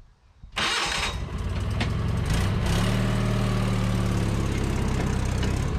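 Small petrol engine of a railway speeder (track motor car) starting with a sudden burst about half a second in, then running steadily as the car pulls away along the rails.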